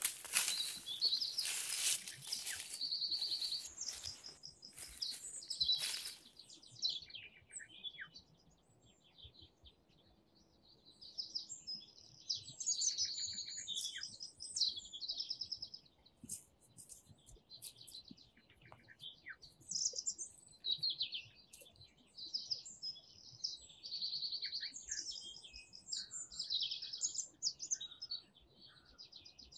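Small songbirds chirping and singing in many short, high repeated phrases. For the first six seconds or so a loud crackling rustle sits over the birdsong, then stops.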